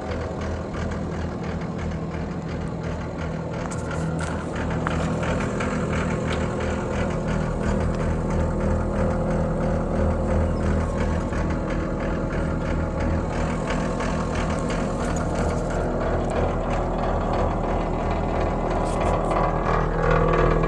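John Deere 333G tracked skid steer's turbo diesel engine running steadily, growing a little louder a few seconds in.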